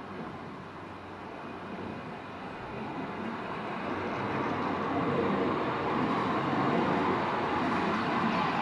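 Schatzalp funicular car running along its rails, a rolling rumble that grows steadily louder as the car comes close by.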